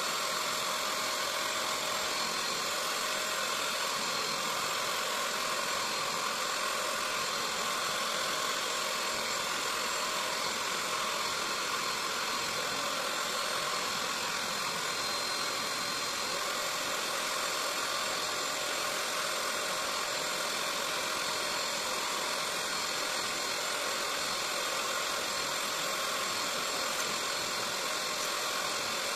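Bissell SpotClean Pro carpet and upholstery extractor running steadily, its suction motor drawing through the hand tool as it is worked over a fabric car seat.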